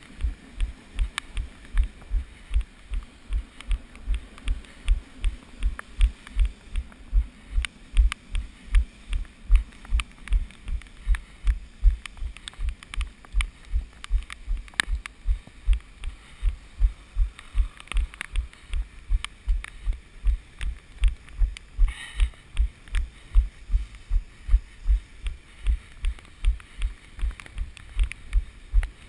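A runner's footfalls thudding through a body-worn GoPro action camera, a steady beat of nearly three steps a second, with faint ticking over it.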